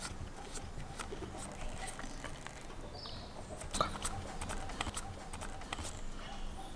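Light, irregular taps and clicks of a basting brush dabbing and brushing raw potatoes in a metal pan, a few per second, the sharpest just before four seconds in.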